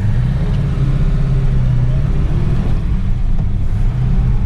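Holden 308 V8, fitted with a new hydraulic roller cam and lifters, running under light throttle as the car pulls away, heard from inside the cabin. Its low note steps up slightly as it moves off.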